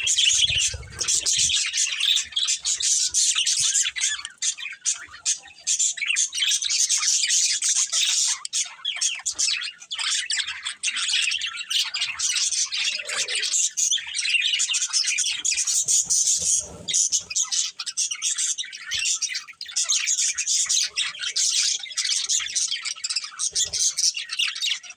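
Several budgerigars chattering without pause, a dense warble of chirps and squawks.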